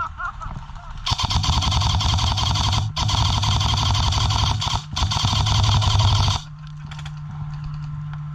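Airsoft electric gun firing on full auto: three long bursts of rapid clicking over a steady motor whine, with two brief breaks, stopping abruptly near the end. A steady low hum follows.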